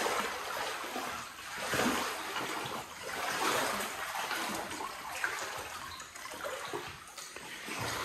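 Someone wading slowly through deep floodwater, the water swishing and splashing in a surge with each step, about every one and a half to two seconds.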